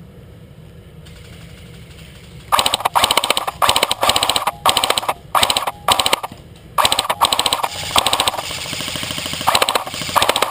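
Magpul Masada airsoft rifle firing a string of short full-auto bursts, a fast rattle of shots, starting about two and a half seconds in.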